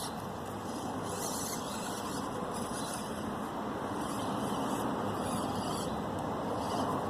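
Axial SCX24 micro RC crawler's small electric motor and gear drivetrain running steadily as it drives up a hill.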